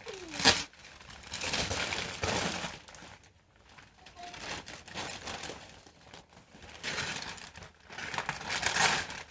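Wrapping paper and packaging rustling and crinkling in repeated bursts as presents are unwrapped and dug through, with a sharp crackle about half a second in.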